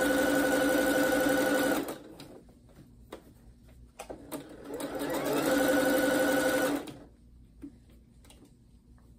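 Computerized domestic sewing machine stitching at a steady speed, stopping about two seconds in. After a few light clicks, the motor whine rises back up to speed and runs for about two more seconds before stopping again.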